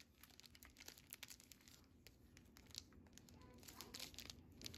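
Faint crinkling and rustling of plastic, with scattered light clicks, as cards and packaging are handled.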